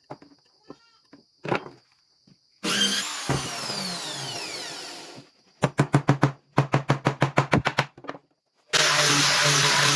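A handheld power tool on wood. It is switched on briefly and spins down after release, its pitch falling. It is then pulsed on and off in a quick run of short bursts, and from about nine seconds in it runs steadily.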